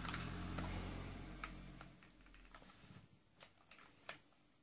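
A few faint, scattered clicks and knocks from a G&G M1 Garand airsoft rifle being handled as its trigger group is pushed back and pulled down to remove it. A low hum underneath fades out about two seconds in.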